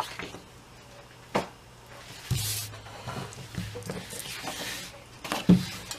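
Paper template being handled on a work table: a short rustle of cardstock about two seconds in, with a sharp light tap a little over a second in and another near the end.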